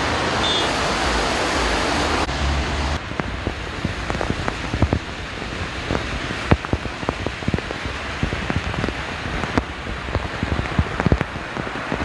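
Heavy downpour. For about the first three seconds it is a steady rushing noise, then many separate drops splatter and tick on wet pavement.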